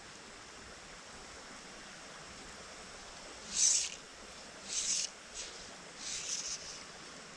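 Steady faint rush of a small creek, with three short hissing swishes about a second apart midway through.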